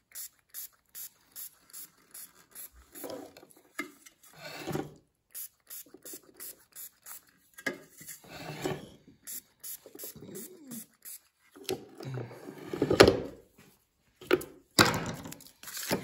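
A pump spray bottle of CA glue activator being spritzed over freshly glued voice coil and spider joints to cure the glue: quick, short hisses about three a second, in several runs. Handling and rubbing noises come between the runs, with one louder knock past the middle.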